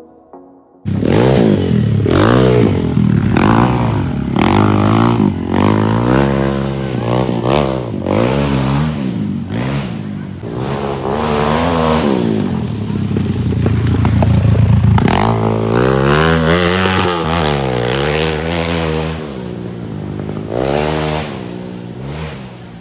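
Off-road dirt bike engine revving hard, its pitch climbing and dropping again and again. It cuts in abruptly about a second in and holds high for a couple of seconds past the middle.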